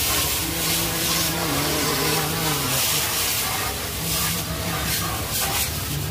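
Pressure-washer jet spraying water against the underside of a car raised on a lift, a steady hiss of spray. A low steady hum sounds for a couple of seconds at the start and again in the second half.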